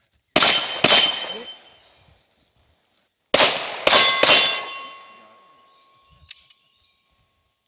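Five gunshots at steel targets, each followed by the ring of struck steel: two shots about half a second apart, then about three seconds later three more in quick succession. The last ring fades out slowly.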